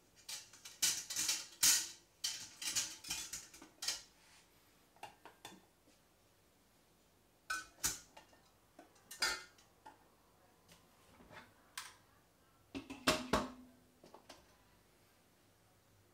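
Clinks and knocks of jars, inner pot and lid being handled in an Instant Pot electric pressure cooker: a dense run of sharp clicks for the first four seconds, then scattered knocks, with a last cluster about thirteen seconds in.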